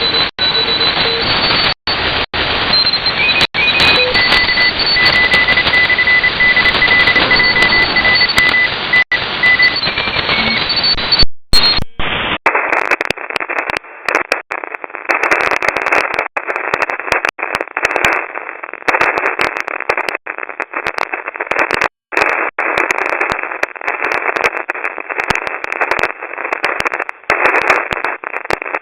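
Shortwave radio static from a WebSDR receiver: hissing, crackling band noise with faint steady heterodyne whistles. About twelve seconds in, after a brief cut, the noise narrows to a thinner, choppier crackle.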